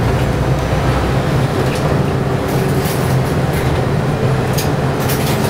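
City bus heard from inside its cabin while driving: its engine and running gear give a steady low hum, with a few short light rattles or clicks in the second half.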